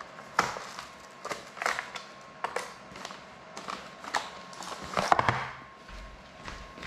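Small tools and parts clicking and clattering on a workbench in irregular taps, with a louder burst of clatter about five seconds in. A faint steady high whine runs underneath.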